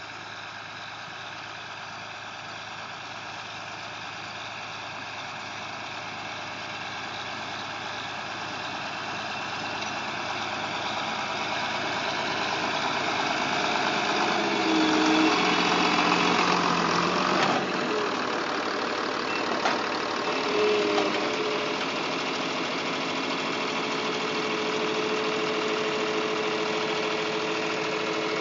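Older John Deere tractor's engine running steadily as it pulls a corn planter past. It grows louder as the tractor approaches, is loudest about halfway through, then stays steady as the planter goes by.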